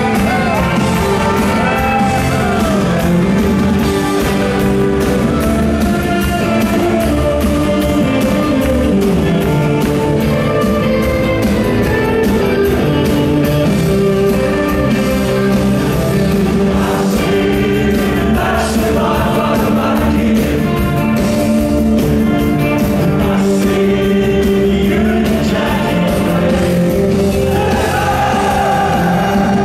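Rock band playing live: electric guitars, bass and drums, with a male lead vocal singing over them. Heard from the audience in a large concert hall.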